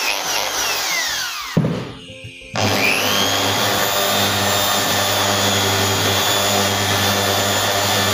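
Old corded electric drill winding down with a falling whine, then after a click and a short pause switched on again about two and a half seconds in, whining up to speed and running steadily. It keeps running while its newly replaced power cord is bent at the handle: the intermittent cut-out from the broken cord is cured.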